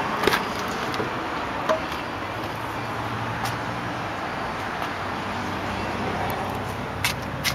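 The rear door of a 2009 Dodge Journey clicks as its latch releases when the outside handle is pulled. A few light clicks and knocks follow as the door is handled, with two sharp clicks near the end, over steady outdoor background noise with a low hum.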